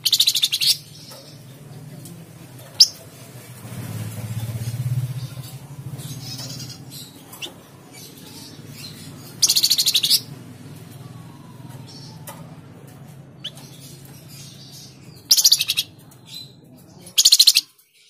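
A caged flamboyan (tledekan jati) songbird singing in short, loud, rapid high-pitched trilling bursts, four times. The first comes at the start, one comes mid-way, and two come close together near the end, over a faint low hum.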